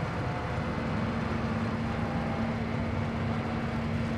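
Dockside crane's machinery running: a steady low mechanical rumble, joined about half a second in by a steady hum that holds on.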